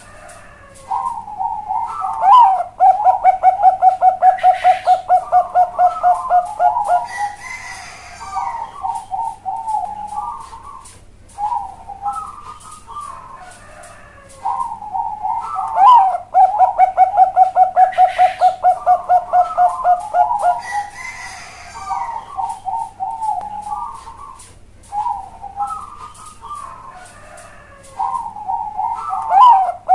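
Bangkok-type perkutut (zebra dove) cooing. Its full song phrase comes three times, about every thirteen seconds: each opens with a few coos, runs into a fast even series of about five coos a second, then ends in looser notes. A fainter, higher call sounds between the phrases.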